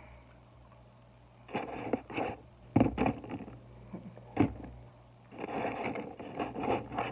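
Paper food wrapper rustling and crinkling in several bursts as fingers pick through fried chicken pieces, with a sharp click about halfway through.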